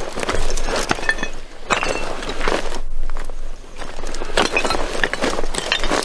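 Hurried footsteps crunching through dry undergrowth in uneven bursts, with brief pauses.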